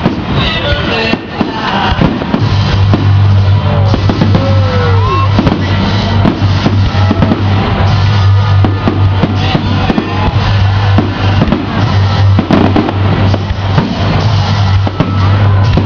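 Aerial fireworks bursting and crackling in quick succession over loud music. A heavy steady bass line comes in about two and a half seconds in.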